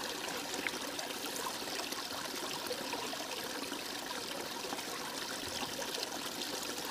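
Shallow stream running over stones: a steady babble of trickling water.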